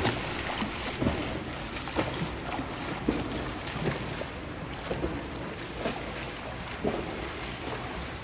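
A swimmer's front-crawl strokes and kicks splashing in pool water, with a steady rhythm of about two splashes a second, slowly fading as she swims away.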